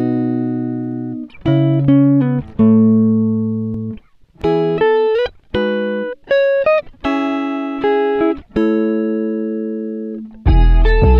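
Background music of plucked guitar notes and chords, each ringing and fading before the next. A fuller passage with deep bass comes in near the end.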